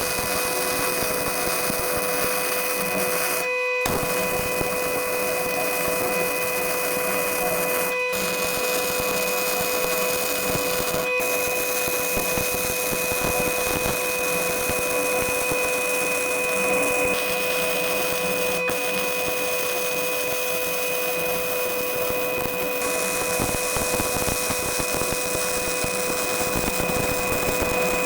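Electric power tool motor running steadily with a constant whine, briefly interrupted three times.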